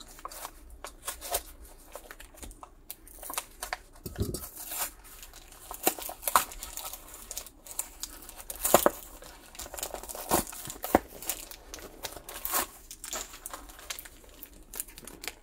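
Crinkling and tearing of Pokémon card packaging, the plastic blister and a foil booster wrapper being opened by hand, in irregular crackles and short snaps.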